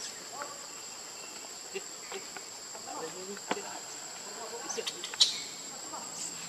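Steady, high-pitched drone of a forest insect chorus, with faint scattered clicks and rustles and one sharp snap about five seconds in.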